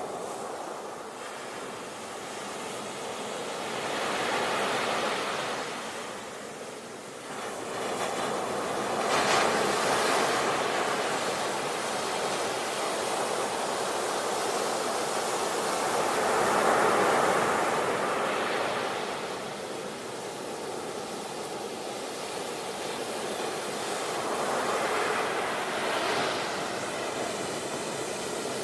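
Ocean surf: waves breaking and washing back on a shore, the rush swelling and falling away with a louder break every five to eight seconds.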